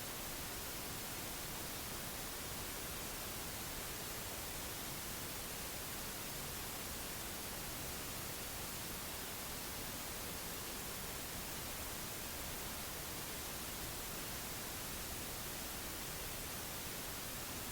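Steady, even hiss with nothing else standing out: recording noise.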